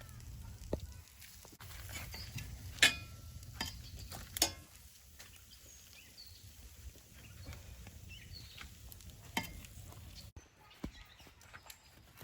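Kitchen utensils clinking and knocking against cookware and dishes as food is served, with two sharp metallic clinks about three and four and a half seconds in, over a low steady rumble that stops near the end.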